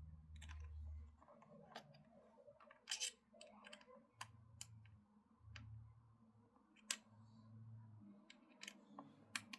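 Faint, irregular small metal clicks and taps, about a dozen of them, as an Allen key works the screws of an optic mount being tightened onto the air rifle's rail.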